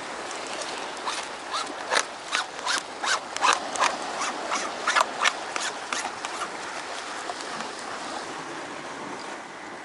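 Surf washing against a sea rock, with an irregular run of sharp clicks and knocks from handling fishing gear, several seconds long in the middle, while a hooked fish is netted.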